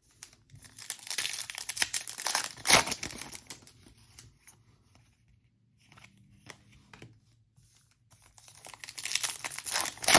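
Foil trading-card pack wrapper being torn open and crinkled by hand, in two bursts: the first with a sharp rip about three seconds in, the second starting about eight seconds in.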